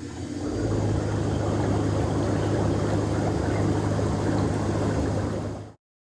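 Air Massage Elite air bath running in a filled tub: the blower hums while air bubbles up through the bathwater with a steady rushing, churning sound. It builds up over about the first second, holds steady, and cuts off suddenly near the end.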